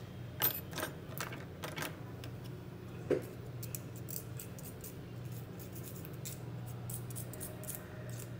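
Light metallic clicks and taps of small repair tools on a workbench, several in the first two seconds and a sharper one about three seconds in, over a steady low hum.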